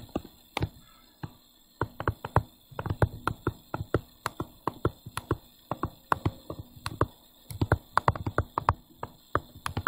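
Plastic stylus tapping and clicking on a tablet screen while handwriting: a run of quick, irregular ticks with a short pause about a second in.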